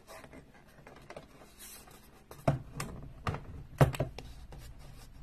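Retaining tabs on the back of a picture frame being bent back by hand, with several sharp clicks in the second half amid light handling of the frame.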